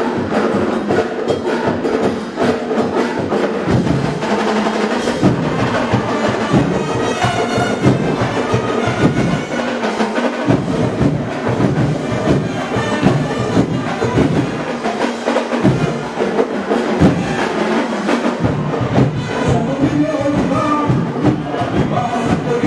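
Dinagyang festival percussion music: drums and other percussion playing a continuous rhythmic beat.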